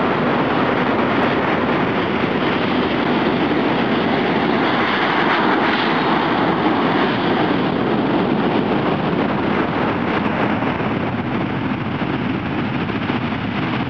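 Ryanair Boeing 737-800 jet airliner landing, with a steady loud rush of jet engine noise. It is loudest about five to seven seconds in, as the plane touches down and rolls out along the runway.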